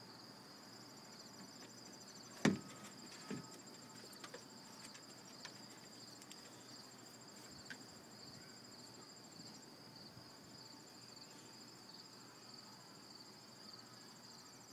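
Insects trilling steadily: one even high trill with a faster pulsed trill above it. A sharp knock comes about two and a half seconds in, and a softer one a second later.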